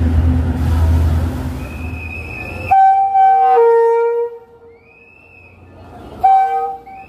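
Low rumble of a passenger train at the platform. About three seconds in, after a sudden cut, the train's horn sounds a blast of about a second and a half that drops to a lower note, then a second short blast near the end.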